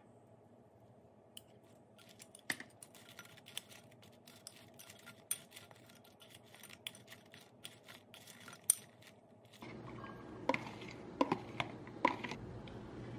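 A metal spoon clinking and scraping against a glass bowl while stirring sticky sauce into pieces of fried chicken, with a few sharper clinks. Near the end, a short run of light knocks as rice is tipped from a plastic container into a ceramic bowl.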